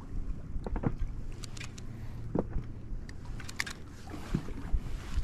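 Small inflatable boat on the sea: a steady low rumble of water and wind, with scattered short knocks and clicks.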